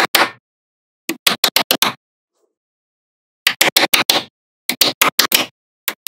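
Small magnetic balls clicking together in quick runs of about five to seven sharp snaps, with complete silence between the runs.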